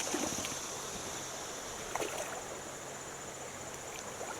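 Steady rush of flowing river water, with a few faint knocks or splashes.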